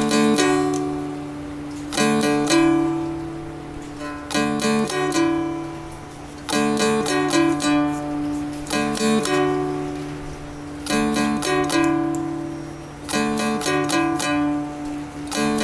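Seagull Merlin (a small four-string dulcimer) playing a short melody over a steady drone. A new phrase of plucked notes is struck about every two seconds.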